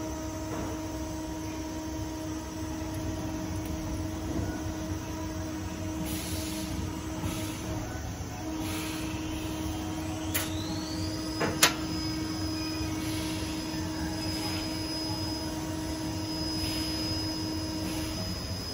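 Steady electrical hum of a powered automatic screen printing machine, with soft rustles and clinks as gloved hands fit a metal bottle-holder arm. About ten seconds in, a thin high whine rises and then holds. A sharp click just after it is the loudest sound.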